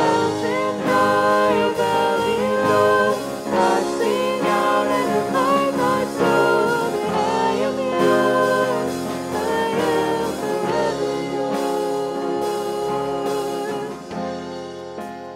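Live worship band playing a contemporary worship song: male and female voices singing the melody over keyboard, electric bass, acoustic guitar and drums. It gets quieter near the end.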